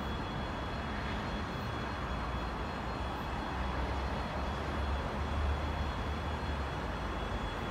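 Steady distant low rumble of vehicle engines, swelling a little in the middle and then easing back, over a faint steady high tone.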